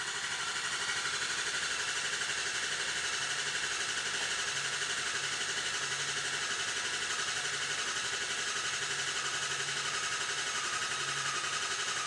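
Starter cranking a 6.0-litre Powerstroke V8 turbo-diesel, turning it over steadily at about 180 rpm without it firing: a crank-no-start. The mechanic wonders whether chafed number 4 injector wiring is holding that injector open and leaking high-pressure oil.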